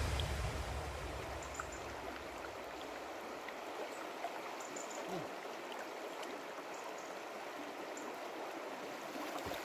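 River water flowing steadily. Background music fades out at the start.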